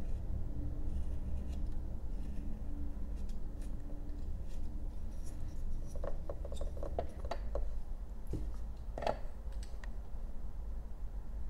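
Whittling knife paring thin cuts from a basswood block, with faint scraping, then a run of short sharp clicks and taps as the knife and carving are handled. A steady low hum sits under it all.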